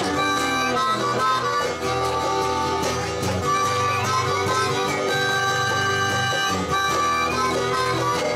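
Harmonica playing a melody of long held notes over acoustic guitar accompaniment.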